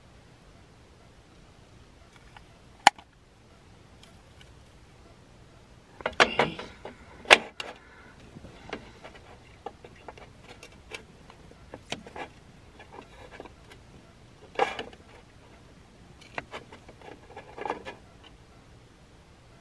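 Hands working with food and utensils: sharp clicks, the loudest about 3 and 7 seconds in, and short spells of rustling and tapping.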